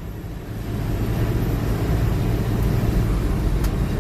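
A vehicle engine being revved, climbing about a second in and then held at high revs.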